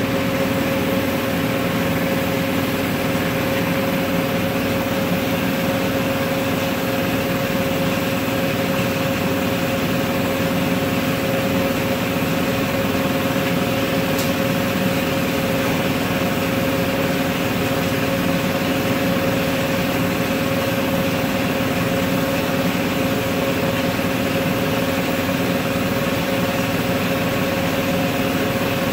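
Gas-fired glory hole and glass furnace burners and blowers running with a steady roar and hum.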